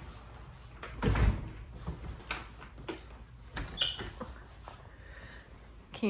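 A door bumping shut with a low thud about a second in, followed by a few scattered light clicks and knocks, one with a brief squeak.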